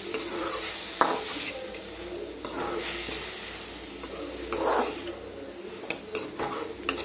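Spatula stirring and scraping mint leaves sautéing in oil in a metal kadai, with a light sizzle under a few louder scraping strokes and small clinks near the end.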